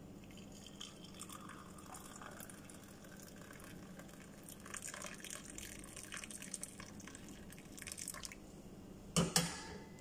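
Herbal tea being poured from a saucepan into a ceramic mug: a faint trickling stream with small irregular splashes. Near the end, two sharp knocks as the pan is set back down on the stove's metal grate.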